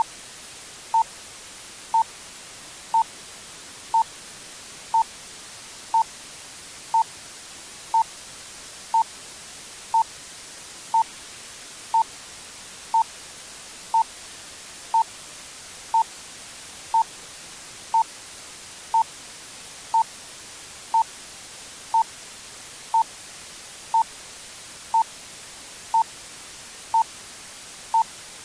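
Bomb countdown timer sound effect: a short electronic beep once every second, all at the same pitch, over a steady hissing burning fuse.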